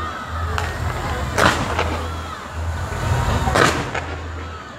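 Aerial fireworks exploding: two loud bangs, about one and a half and three and a half seconds in, with fainter pops and crackle between, over a steady low rumble.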